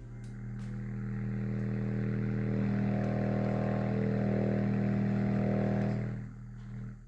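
Logitech Z533 subwoofer driver, out of its enclosure in free air, playing a 40 Hz test tone from a tone generator as a steady low buzzing hum. It swells over the first few seconds as the volume is turned up, holds, then drops about six seconds in and cuts off just before the end.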